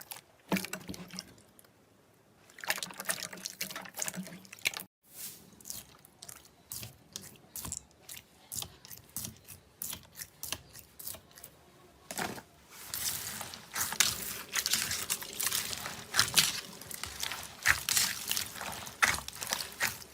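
Slime being squished and kneaded by hand: a run of wet clicks and small pops, breaking off briefly about five seconds in, then turning denser and louder crackling from about twelve seconds on.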